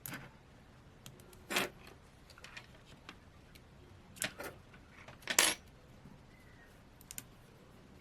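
Small repair tools clicking and scraping against a smartphone's internal parts while prying out the charging-port board: a handful of short, sharp clicks, the loudest about five and a half seconds in.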